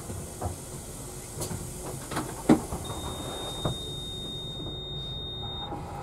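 Bus engine idling with a steady low hum, heard from inside the bus. Several clicks and knocks sound, the loudest about two and a half seconds in. A steady high-pitched beep starts about halfway through and lasts about three seconds.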